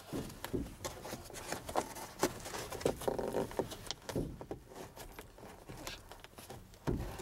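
Hands working a dome-light housing and wiring in a pickup's cloth headliner: irregular light clicks, scrapes and rustling of plastic trim, fabric and wire.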